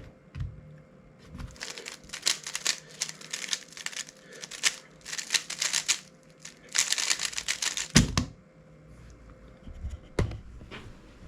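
3x3 speed cube being turned fast in a solve: a rapid clatter of plastic layer turns in several runs, ending with a heavy thump, then a single sharp knock about two seconds later.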